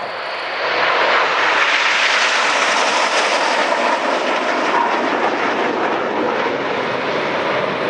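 Nine BAE Hawk T1 jets passing in close formation: loud, steady jet-engine noise that swells about a second in and then holds.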